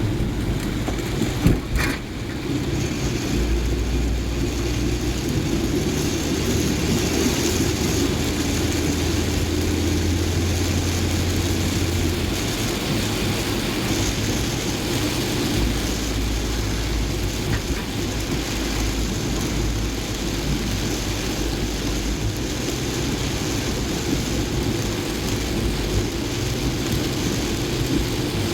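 A car driving through heavy rain: steady engine and road rumble that shifts in pitch now and then, under a continuous hiss of rain. A short sharp knock sounds about two seconds in.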